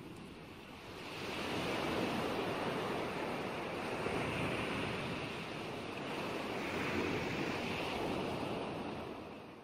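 Ocean waves washing in and out: a steady rush of surf that swells about a second in, rises and falls a few times, and fades away at the very end.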